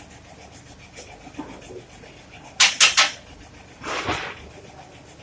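Compressed-air spray gun with red colour coating in its top cup, triggered in short hissing blasts: three quick bursts about two and a half seconds in, then a longer one about a second later.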